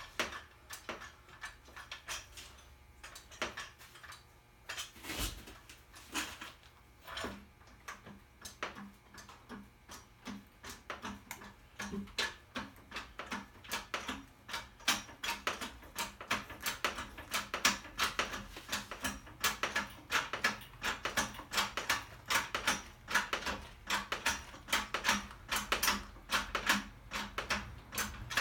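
Long run of sharp metallic clicks from hand-tool work on a truck wheel, scattered at first and settling into a quick, regular rhythm of about three or four clicks a second about halfway through.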